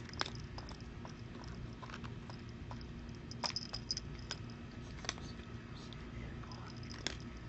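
Quiet ambience: a steady low hum with faint, scattered clicks and light taps, a few close together about halfway through.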